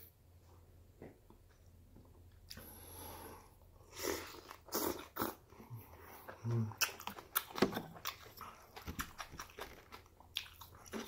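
Person eating spicy beef soup with glass noodles: quiet at first, then slurping from a spoon about four to five seconds in, followed by close, wet chewing with many short mouth clicks and smacks.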